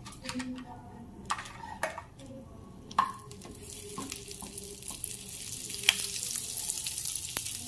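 Butter melting and sizzling in hot oil in a non-stick kadai, pushed around with a wooden spatula that knocks against the pan a few times early on. The sizzle builds from about halfway through as the butter foams.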